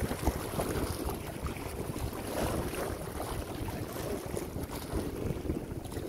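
Small sea waves washing and lapping at the shore, swelling and easing every couple of seconds, with wind rumbling on the microphone.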